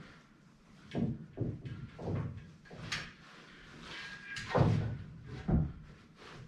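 Steel clunks and scrapes as a Jeep TJ tire carrier's swing arm is worked up off its hinge post, a series of separate knocks with the loudest a little after halfway, one of them ringing briefly.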